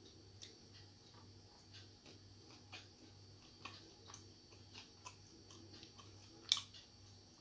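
Bare fingers mixing rice with fried bitter gourd on a plate: faint, scattered small clicks as the fingers press the rice and touch the plate, with one sharper click about six and a half seconds in.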